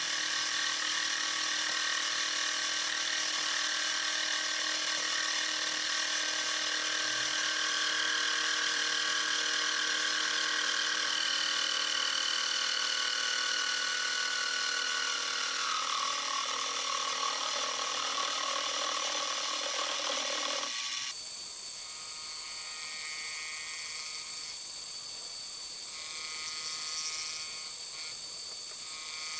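Mini-mill spindle running with an end mill taking light cuts around the rim of a brass gear blank in a dividing head: a steady mechanical whine with a tone that slowly falls. About two-thirds of the way through the sound changes abruptly and grows thinner.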